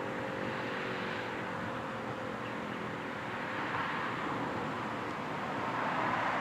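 The Federal Signal Model 5 siren's low tone falling slightly and fading out about two seconds in as the siren winds down after its test, over steady road-traffic noise that grows louder near the end.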